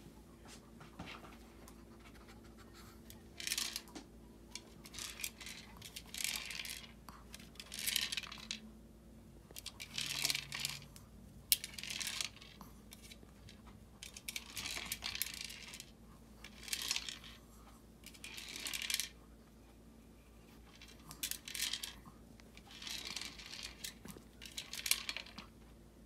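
A plastic rotating treat-dispenser toy scraping and rattling as a chihuahua nudges and turns it with its nose, in short bursts every second or two.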